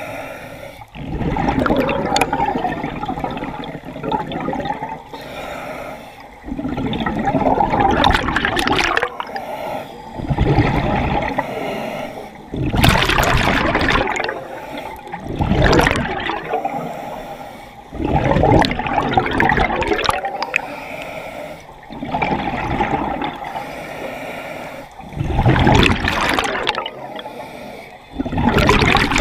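Scuba diver breathing through a regulator underwater: breaths drawn in and rushes of exhaled bubbles, repeating about every three seconds.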